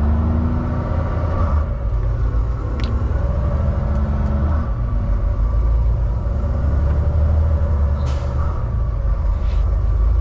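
Volvo semi truck's diesel engine running under way, heard inside the cab: a heavy low rumble whose note slowly rises and falls with the throttle. A few light clicks and a brief hiss come about eight seconds in.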